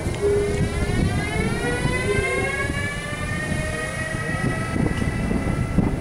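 Siemens Vectron electric locomotive 383 052 pulling away under power. Its traction converters give a whine of several stacked tones that climbs in pitch over the first few seconds as it accelerates, then holds steady. Underneath runs a low rumbling noise.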